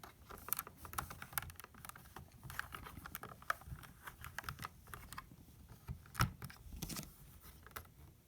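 Irregular clicking and light knocking of LEGO plastic parts being handled and twisted in a puzzle box, with two louder knocks late on.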